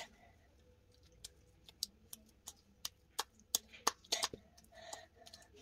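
Slime being squeezed and stretched by hand, giving small sharp clicks and pops at irregular intervals, coming thicker a little past the middle.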